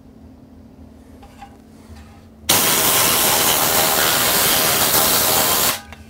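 Tornador compressed-air cleaning gun blasting dust out of an amplifier chassis: a loud, steady rushing hiss that starts suddenly about two and a half seconds in, lasts about three seconds and cuts off.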